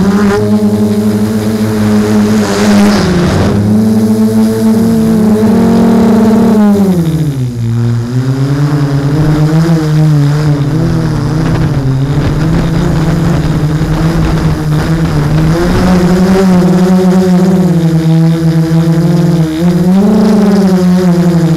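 Hexacopter's six LD-Power MT3110 780 KV brushless motors spinning 10x4.5 propellers, a loud steady buzzing hum heard close from the camera on the frame. Its pitch falls and rises again about seven to eight seconds in, and wavers near the end as the motor speed changes.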